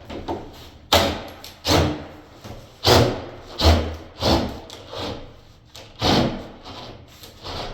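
A series of sharp knocks and thuds, about eight, at uneven intervals.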